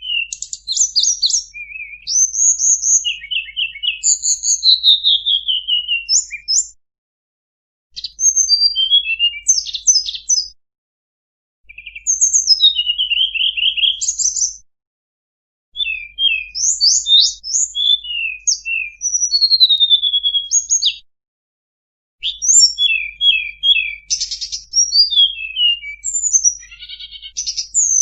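A tledekan gunung singing a fast, varied song of high chirps, rapid trills and whistled glides, packed with phrases in the style of a trained 'full isian' song. The song comes in bouts of a few seconds broken by short pauses.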